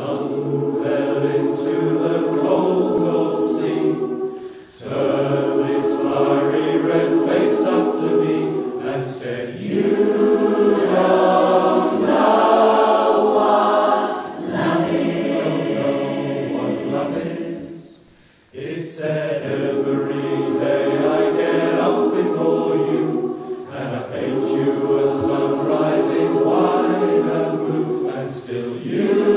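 A large mixed choir singing a slow song in many-part harmony, holding long chords. Its phrases break briefly about four seconds in and pause clearly a little past halfway through.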